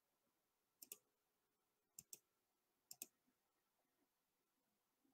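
Faint computer mouse clicks, three quick pairs about a second apart, over near silence.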